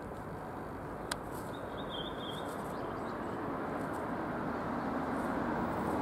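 Steady rumble of distant traffic that slowly grows louder, with a faint, thin, high bird call about two seconds in and a single sharp click just before it.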